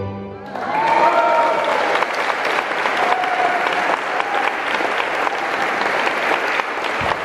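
Audience applause breaking out about half a second in, just as the last note of the tango music dies away, then carrying on as steady clapping.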